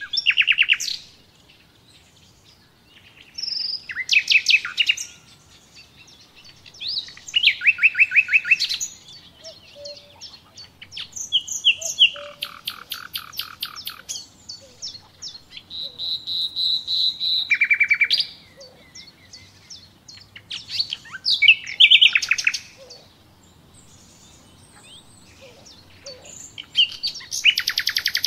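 A songbird singing in short phrases of fast trilled notes, each phrase lasting one to three seconds and coming again every few seconds, about seven times.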